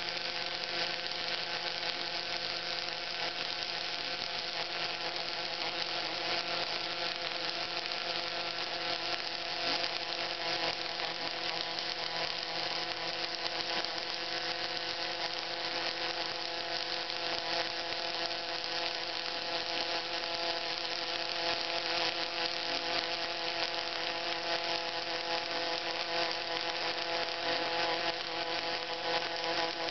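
Robotic MIG arc welding laying a hardfacing bead: a steady crackling hiss from the arc over a steady hum with several tones from the robot and welding equipment.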